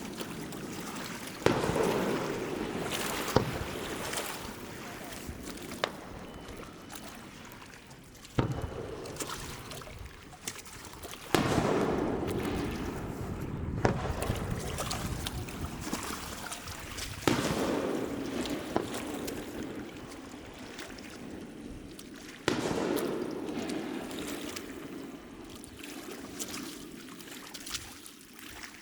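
Aerial firework shells bursting: sharp booms every few seconds, each followed by a long rolling echo that fades slowly.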